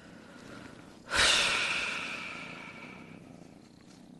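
A long breathy exhale close to the microphone, like a heavy sigh, starting suddenly about a second in and fading away over about two seconds.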